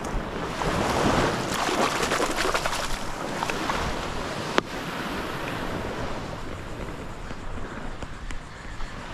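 Small surf washing up the sand at the water's edge and draining back, louder in the first three seconds, with wind on the microphone. One sharp click about four and a half seconds in.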